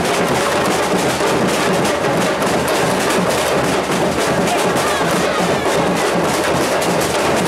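Brazilian street-carnival percussion band drumming a fast, unbroken rhythm on snare and bass drums, with a dense crowd around it.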